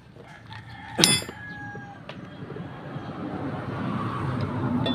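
A wrench clinks once against the metal suspension arm about a second in, ringing briefly, while the arm's bushing bolt is being worked. A background noise then swells toward the end.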